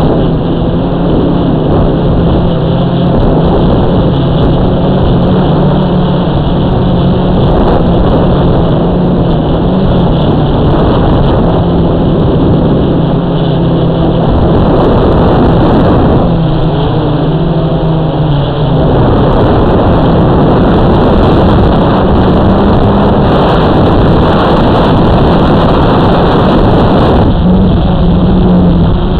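Drone's electric motors and propellers humming steadily, loud and close to the onboard camera's microphone, over rushing wind noise. The hum wavers slightly in pitch as the motor speeds change and weakens for a stretch in the second half.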